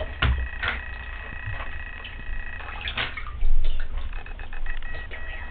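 Bath water splashing as a baby slaps at it from a bath seat: sharp splashes near the start and about three seconds in, followed by a louder low thump.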